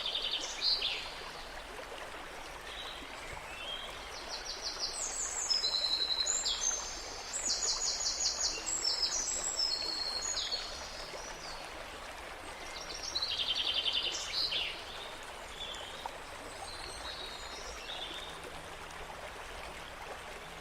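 Songbirds chirping in rapid trills over a steady rush like running water, with the birds busiest from about four to ten seconds in and again briefly a little later.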